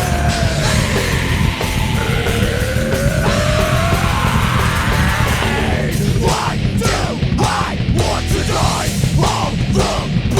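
Heavy metal band playing a raw, unmastered studio track: distorted guitars, bass and drums. For the first six seconds or so, a high line slides and bends up and down in pitch over the band; then the music turns to a choppy, stop-start riff.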